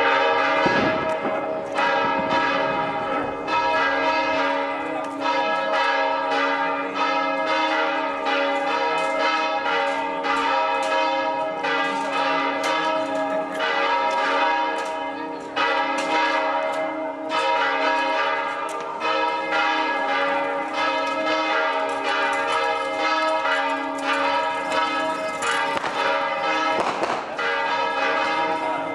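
Church bells pealing, strokes coming quickly one after another while the tones of several bells ring on over each other.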